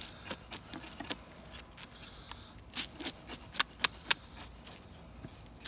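A knife blade scraping the scales off a small crappie in quick, irregular strokes that sound like sharp scratchy clicks. The strokes come most thickly a little past the middle.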